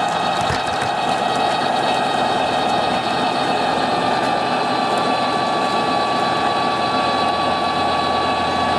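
Märklin gauge 1 V 100 model diesel locomotive running, giving a steady diesel-engine drone with a held high whine over it that dips slightly near the end.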